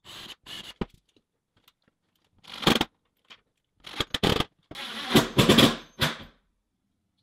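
About six short bursts of scraping and clattering as metal power distribution blocks and their screws are handled and fastened onto a plastic mounting board, with silent gaps between them.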